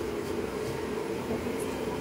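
Steady hum of a wall-mounted kitchen exhaust fan running, with a few faint light clicks.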